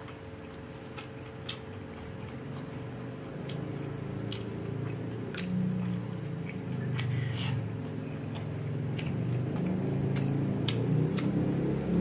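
A person eating rice and shrimp by hand: chewing with many short, sharp lip and tongue smacks. A low steady background rumble grows louder toward the end.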